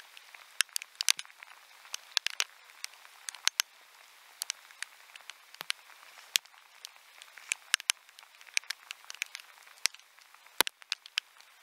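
Rain: irregular sharp taps of raindrops striking the camera housing, several a second, over a faint steady hiss of rain on the river. One heavier knock stands out near the end.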